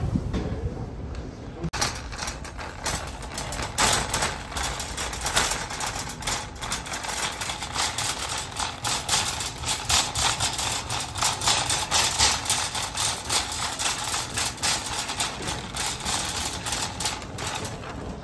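Wire shopping cart rattling and clattering as it is pushed along a tiled floor, starting about two seconds in: a rapid, uneven run of metallic clicks and rattles.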